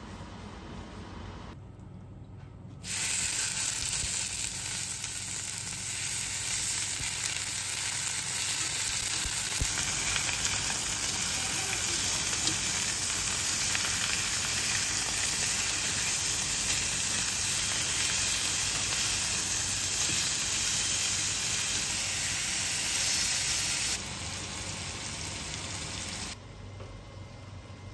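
Raw pork belly and pork shoulder sizzling in a hot cast-iron skillet: a loud, steady frying hiss that starts abruptly about three seconds in and drops off suddenly near the end.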